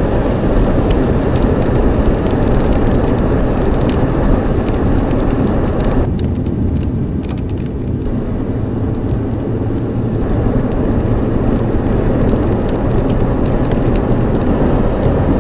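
Car driving, heard from inside the cabin: a steady rumble of engine and tyres on the road, with scattered light ticks. The higher hiss eases for a few seconds about midway, then returns.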